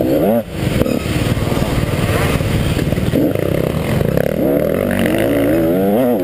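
KTM 150 XC two-stroke dirt bike engine revving hard under race load, its pitch rising and falling with the throttle. There is a short drop about half a second in, then a steady climb in revs through the second half.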